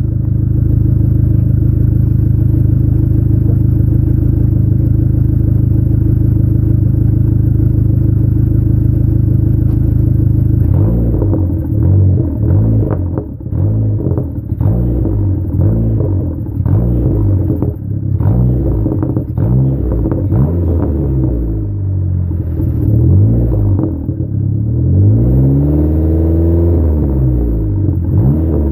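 Dodge Neon SRT-4's turbocharged 2.4-litre four-cylinder heard at the tailpipe through the stock exhaust, with the electric exhaust cutout closed. It idles steadily, then from about ten seconds in it is revved in a run of quick blips, each rising and falling in pitch, with one longer rev near the end.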